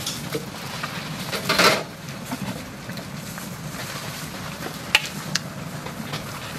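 A pile of bean sprouts dropped from a plastic basket into a large pot of hot soup, with a short, loud rustling splash about a second and a half in. Near the end, a metal ladle stirs the soup and clinks twice against the metal pot, over steady background noise.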